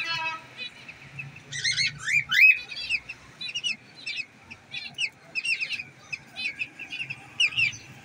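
Cockatiels chirping: a run of short, high, rising chirps, several a second, loudest about two and a half seconds in.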